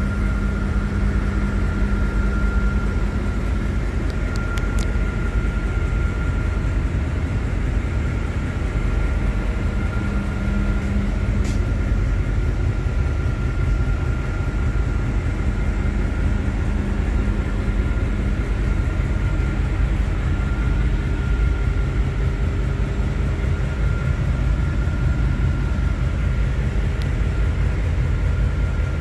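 A container ship's engine-room machinery running steadily: a loud low rumble with a constant high whine over it, heard inside the engine control room.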